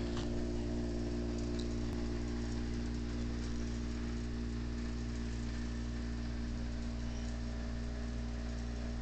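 Steady low mechanical hum made of several held tones over a faint even hiss, unchanging throughout.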